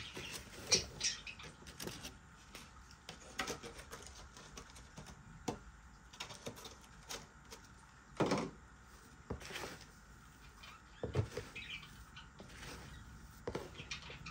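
Handling noise from a container of superworms: scattered light clicks and rustles with a few louder knocks, the loudest about eight seconds in.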